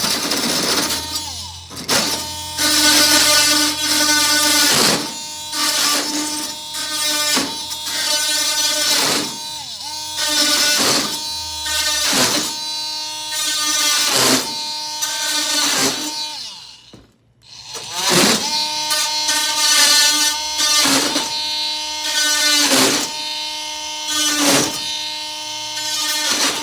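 Ryobi oscillating multi-tool running and cutting through galvanized hardware cloth: a steady buzzing hum broken by repeated sharp snaps as the blade cuts through the wires one after another. The tool stops briefly about two-thirds of the way through, then starts again and keeps cutting.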